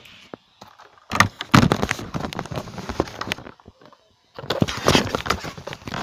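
Crackling, rustling handling noise as a phone's microphone rubs and knocks against clothing while it is carried about. It comes in two loud stretches with a short break about three and a half seconds in.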